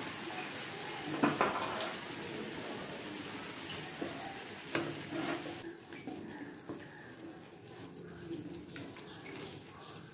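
Hilsa fish in a poppy-seed and curd paste sizzling in a frying pan of hot mustard oil, the sizzle thinning a little past halfway. A wooden spatula stirs in the pan, with a few light knocks against it.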